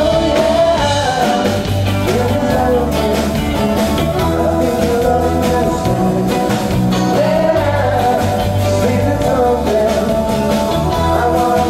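Live amplified rock band playing: electric bass, drum kit with cymbals, electric guitar and keyboards, with a man singing lead.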